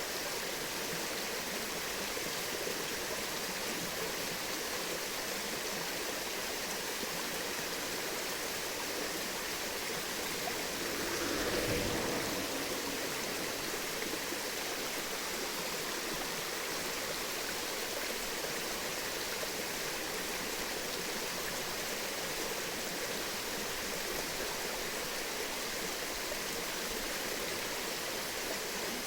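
Steady rush of flowing water, an even hiss with no rhythm. About eleven seconds in it briefly swells louder and deeper for a second or so.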